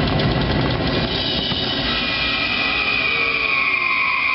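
Fireworks show soundtrack music playing over loudspeakers, with drums, and a sustained high tone building from about two seconds in.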